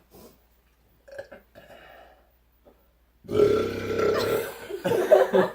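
A loud, drawn-out human burp lasting about two seconds, starting a little over three seconds in. It is forced up on purpose from air sucked into the stomach.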